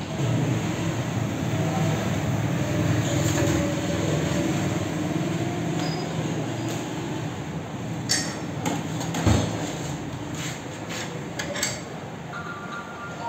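Steady mechanical rumble with several sharp knocks or clinks about two-thirds of the way through, and a short high tone near the end.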